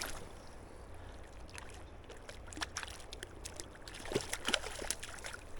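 Light water splashing and scattered small clicks over a steady low rumble, during the playing of a hooked trout on a fly rod.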